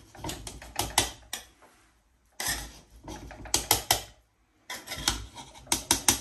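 Metal spoon scraping and clinking against a cooking pot of fish biryani, in three bursts of quick clicks with short pauses between.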